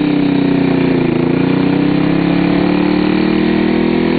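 Motorcycle engine running as the bike pulls away and rides; its pitch dips slightly about a second in, then rises slowly and steadily.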